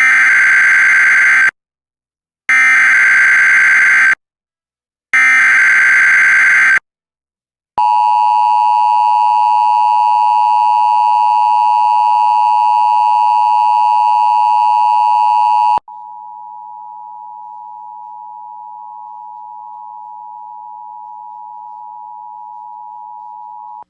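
Emergency Alert System activation. First come three bursts of SAME digital header data, each about a second and a half long. Then the two-tone EAS attention signal sounds steadily for about eight seconds. It cuts off and is followed by a quieter single steady tone near 1 kHz for about eight more seconds.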